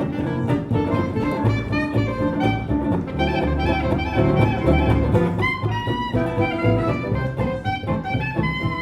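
Live swing jazz band playing an instrumental break at a steady beat, with the bass carrying the bottom.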